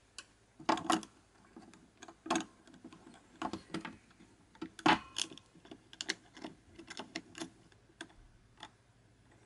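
Irregular light clicks and taps of small metal and plastic parts handled in an opened Tokyo Marui MP5 airsoft electric gun gearbox during piston-to-sector-gear (AOE) adjustment. The loudest clicks fall about a second in, near two and a half seconds, and near five seconds.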